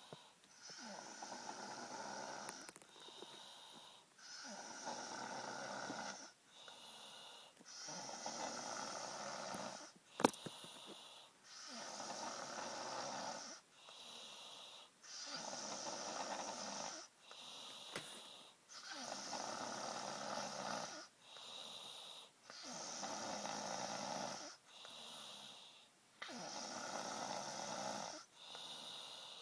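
A girl snoring in a steady rhythm, each long, noisy breath followed by a shorter, higher-pitched one, a full cycle about every three and a half seconds. A single sharp click sounds about ten seconds in.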